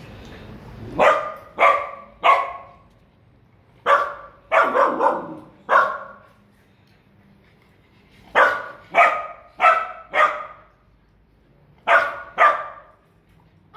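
Puppy barking: about fourteen sharp, high barks in four quick bursts, with short pauses between the bursts.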